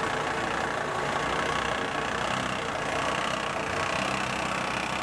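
Mercedes-Benz E-Class saloon's engine running at a slow crawl as the car creeps forward over a cobblestone lane, a steady even sound.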